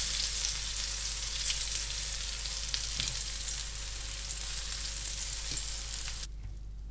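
Flour-coated garfish fillets sizzling in hot olive oil in a frying pan, with a few faint clicks. The sizzle cuts off suddenly near the end.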